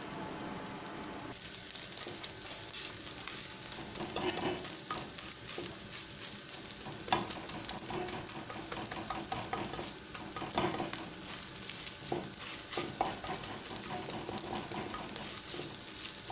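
Beaten egg sizzling in hot oil in a nonstick wok while a spatula breaks it up and stirs it, scraping and knocking against the pan. The sizzle comes up a little over a second in, and there is a sharper knock about seven seconds in.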